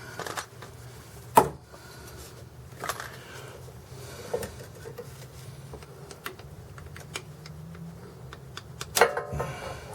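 Hand tools clicking and tapping on metal parts during work on a Jeep's clutch slave cylinder, with a sharp knock about a second and a half in and another near the end, over a low steady hum.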